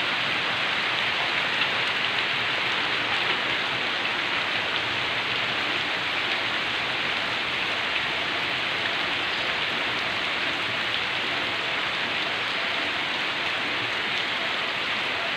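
Heavy rain falling steadily, with no wind and no thunder.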